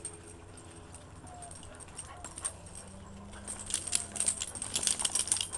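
Basset hounds moving about on packed dirt. A quick run of light clicks and rattles starts about three and a half seconds in and lasts about two seconds.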